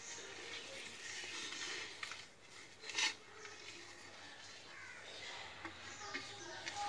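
Fingers rubbing oil over a ceramic plate: a faint rubbing, with a sharp clink of the plate about three seconds in.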